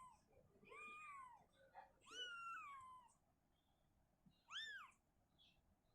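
Cat meowing: three separate meows, each rising then falling in pitch, the last one short.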